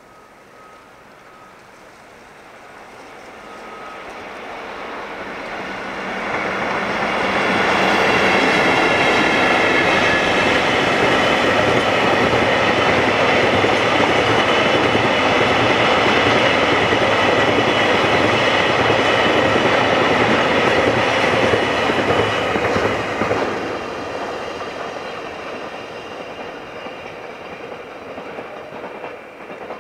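A freight train hauled by double-headed EF64 electric locomotives passing at speed. It approaches over about eight seconds, then its wheels clatter over the rail joints with a steady whine, loud for about fifteen seconds. Near the end it fades as the train moves away.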